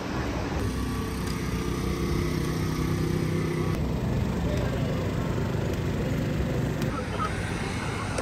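City street noise: traffic running with indistinct voices of passers-by, the sound changing abruptly at a few cuts between short clips. For a few seconds near the start a steady engine hum sits under it.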